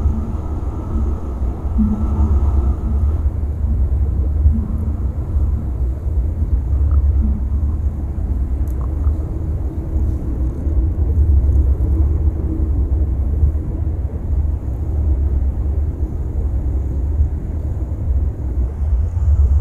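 Steady, muffled low rumble of pool water heard underwater as swimmers kick past with fins.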